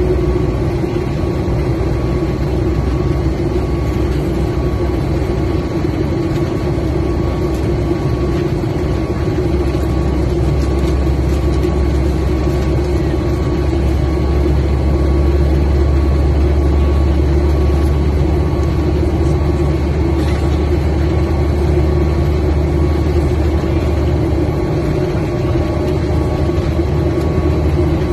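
Steady drone inside an airliner cabin: the deep, even roar of jet engines and air flow, with a few faint steady whines over it.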